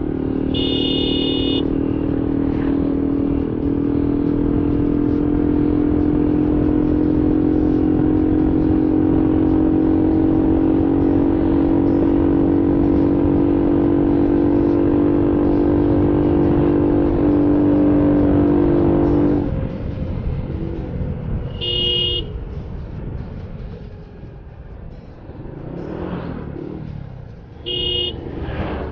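Motorcycle engine running at a steady cruise, a loud, even drone that drops away suddenly about two-thirds of the way through, leaving quieter road and traffic noise. Vehicle horns give short honks near the start and twice near the end.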